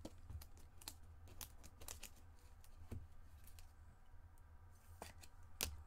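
Faint scattered clicks and light rustles of trading cards and pack wrappers being handled, with the sharpest click near the end, over a steady low hum.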